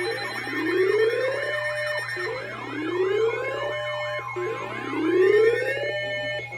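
Electronic siren-style alert sound: many layered rising whoops, the strongest climbing and breaking off about every two seconds, four times in all, over a steady low hum and a few held high tones.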